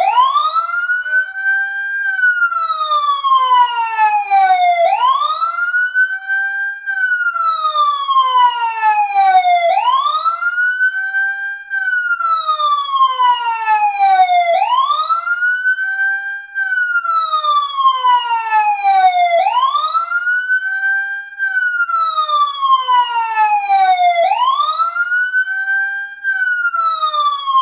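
Fire truck siren sound in a wailing pattern: each cycle rises over about two seconds, then falls over about three, repeating about every five seconds. It is the countdown timer's time-up alarm.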